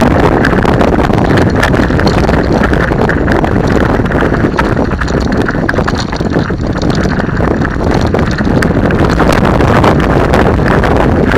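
Mountain bike descending a loose dirt-and-gravel track: tyres rolling over stones and the bike rattling with constant small knocks, mixed with wind buffeting the microphone. The noise eases briefly a little past halfway.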